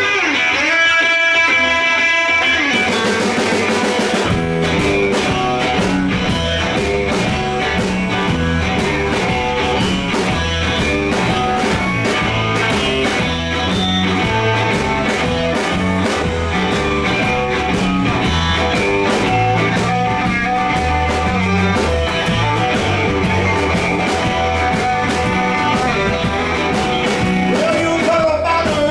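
Live band playing a blues shuffle. Electric guitar plays alone at first; drums come in about three seconds in and the full band with bass soon after, settling into a steady shuffle beat.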